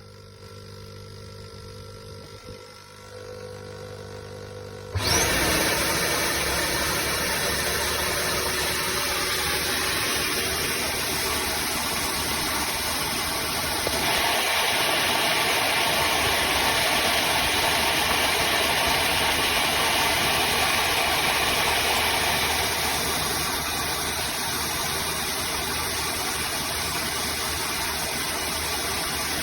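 Bissell CrossWave HydroSteam Pet wet-dry vacuum starting its self-cleaning cycle: after a few seconds of faint hum, the motor switches on about five seconds in with a brief rising whine. It then runs steadily and loudly, getting a little louder partway through and easing slightly near the end.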